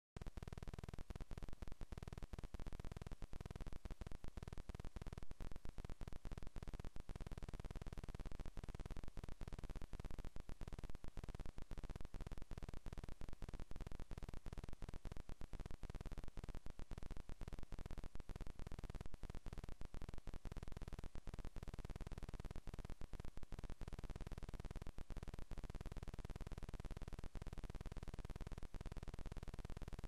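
Steady electrical hum and hiss from a nest camera's audio feed, broken by many brief dropouts.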